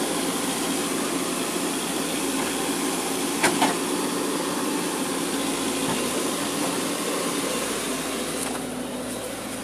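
JCB tracked excavator's diesel engine running steadily at close range, with two sharp metallic knocks about three and a half seconds in.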